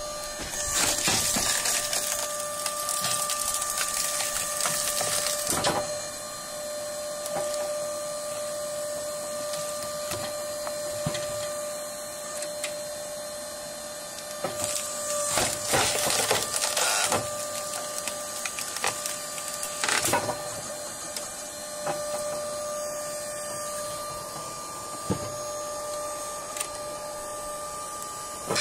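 Homemade hydraulic firewood splitter running with a steady whine from its motor and pump while the ram pushes a log through the splitting blades. The wood cracks and splinters apart in loud stretches about a second in and again around 15 seconds, with a sharp crack about 20 seconds in.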